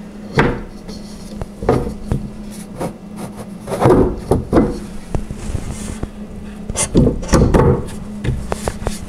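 A wooden shelf panel being pressed and knocked down onto dowel pegs by hand: a series of irregular knocks and thuds with some rubbing, the loudest about four seconds in and again around seven seconds in.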